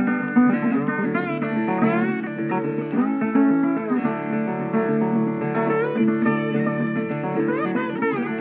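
Background music: a plucked guitar piece with notes that slide and bend, playing steadily.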